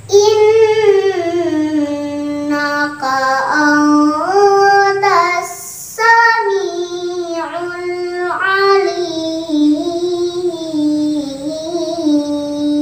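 A young girl reciting the Qur'an in melodic tilawah style. Her single voice holds long, ornamented phrases that glide up and down in pitch, with a brief breath about halfway through.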